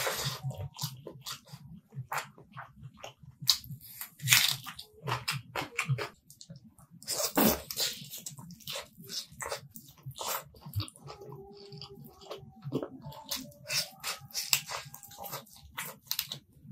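Close-miked eating sounds: wet chewing, lip smacks and sucking as chicken curry and rice are eaten by hand. They come as many short irregular clicks, with a few louder wet bursts about 4 and 7 seconds in.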